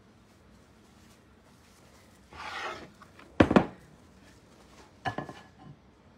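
Dishes being handled on a kitchen counter: a short scrape about two seconds in, a loud sharp knock a second later, and a lighter clatter near the end.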